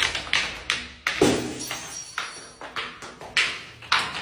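Glass bottles tumbling down granite stairs and breaking: a fast, uneven run of about a dozen sharp clinks and crashes of glass on stone, with a brief high glassy ring partway through.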